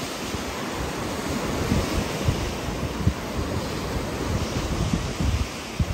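Rough surf breaking and washing up a pebble beach, with wind buffeting the microphone in irregular low thumps.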